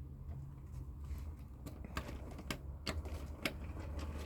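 Irregular sharp clicks and light taps, about two or three a second, like small parts or switches being handled, over a steady low hum.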